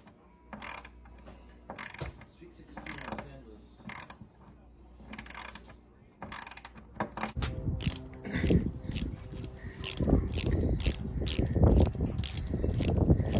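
Small 36-tooth quarter-inch pawl ratchet clicking as it is worked back and forth. There are a few scattered clicks at first, then from about halfway through a steady run of clicking strokes, about two to three a second, over a heavier rattle.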